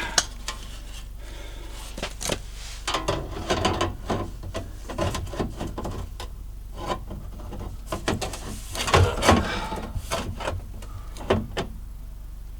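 Irregular knocks, clanks and scraping from a cut sheet-steel patch piece being handled and bent on a workbench.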